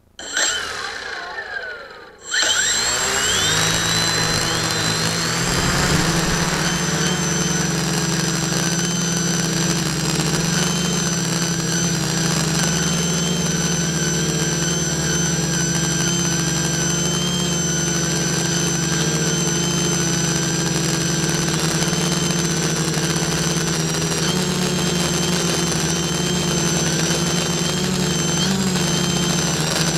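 Multirotor drone's electric motors and propellers, heard from its on-board camera: a short spin-up just after the start, then at about two seconds they throttle up with a rising whine and settle into a steady hum as the drone lifts off and flies.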